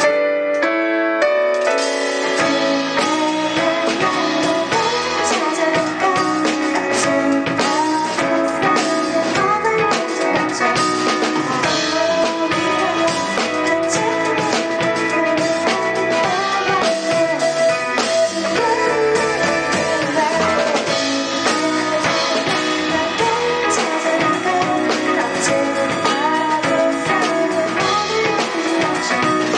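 Pop-rock band music with electric guitar and drum kit playing a passage with no clear vocal line; the drums and bass come in about two seconds in.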